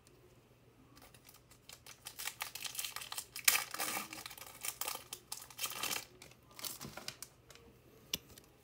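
A Panini trading-card pack wrapper being torn open and crinkled, a dense crackling that starts about a second and a half in, peaks with a sharp rip around three and a half seconds, and eases off toward the end.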